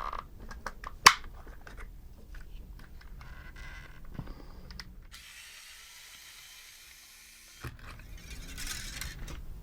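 Small clicks, ticks and scraping of hand tools and plastic parts as a vintage toy RC truck is taken apart, with one sharp click about a second in and a stretch of soft hiss in the middle.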